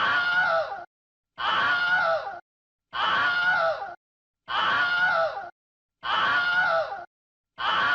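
The same short scream sound effect repeats about every 1.5 seconds, six times in all. Each is a high, strained human scream of about a second that falls in pitch at its end, with a short silence between repeats.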